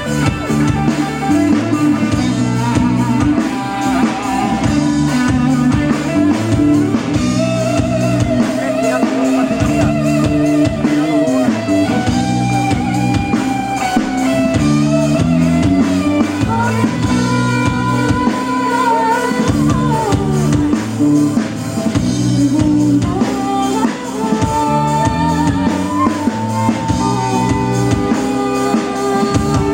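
Loud live band music with drum kit and guitar under a sustained melody line.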